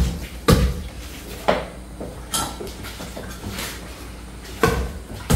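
Kitchen clatter: a handful of sharp, irregularly spaced knocks of cookware and utensils being handled and set down.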